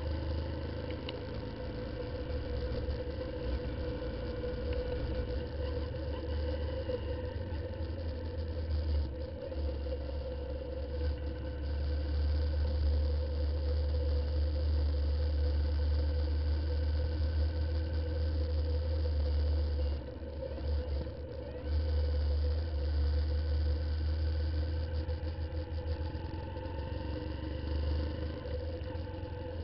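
A Honda CBF125's single-cylinder engine running at low town speed, recorded from a camera on the bike, with a heavy low wind rumble on the microphone. The rumble drops away briefly about twenty seconds in. Other motorcycles run ahead of it.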